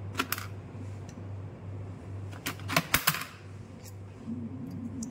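Sharp metallic clicks and clinks of hand tools being picked up and handled against a hydraulic pump and a steel workbench: a couple near the start and a quick, louder cluster about halfway through. A steady low hum sits underneath.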